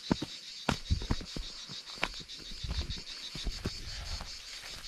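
A steady, high, finely pulsing chorus of insects, with scattered clicks, knocks and rustles from people walking through brush.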